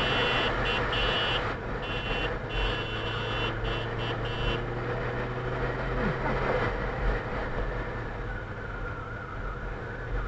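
Motorcycle engine running at road speed with wind and road noise. A high-pitched beeping comes on and off in irregular bursts for the first four and a half seconds. About six seconds in, the engine note drops as the revs fall.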